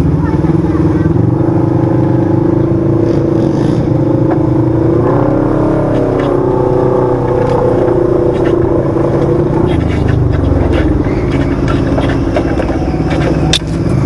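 Side-by-side UTV's 1000 cc twin-cylinder engine running on a dirt trail, heard from on board, its pitch rising and falling around the middle as the throttle changes. Scattered clicks and knocks from about two-thirds in, one sharp click near the end.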